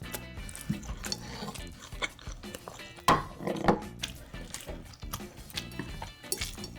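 Close-miked eating sounds: chewing and slurping, with cutlery clicking against dishes, and the loudest mouthful about three seconds in.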